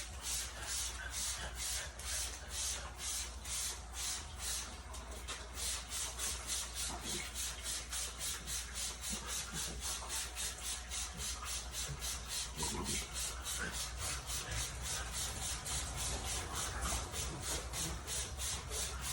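Rhythmic short hissing strokes, about three a second, from work on the coil of a GE dehumidifier as it is cleaned.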